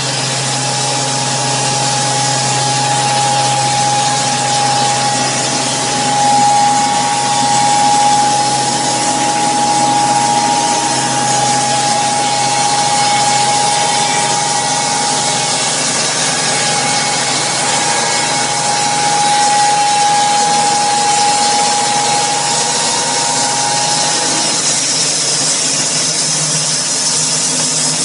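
Powered wood-cutting machinery running steadily, with a sustained whine over a continuous noise. The whine fades out a little before the end.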